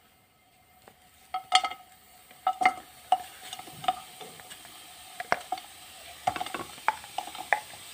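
A spoon scraping and knocking jaggery out of a bowl, the lumps dropping into a nonstick kadhai: a run of irregular light clicks and knocks starting about a second and a half in, over a faint steady hiss.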